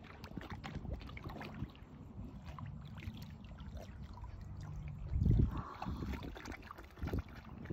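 Muddy dam water sloshing and lapping around a horse as it wades chest-deep, with a louder surge of water a little past halfway.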